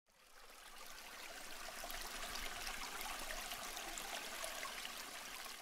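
Steady rush of running water, like a stream, with faint scattered ticks; it fades in at the start.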